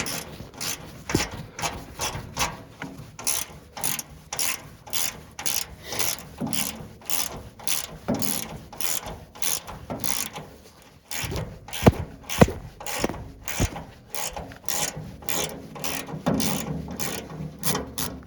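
Ratchet wrench clicking in steady back-and-forth strokes, about three clicks a second, as a bolt is worked off a mini excavator's panel; two sharper metal knocks about twelve seconds in.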